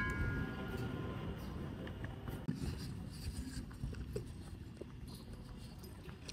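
A metal temple bell's ring fading out over the first second, then a low, steady rumble of background noise with a few faint knocks.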